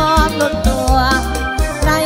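Live mor lam sing band music: a woman's voice singing a wavering, ornamented melody over electronic keyboard and a heavy, steady bass beat.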